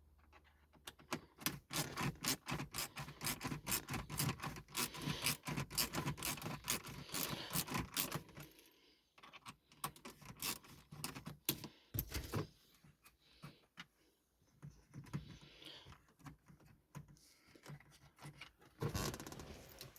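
Rapid clicking and scraping of a hand tool on screws and hard plastic dashboard trim while the heater control panel is taken out, dense for the first several seconds and then sparser, with a single heavier knock about midway.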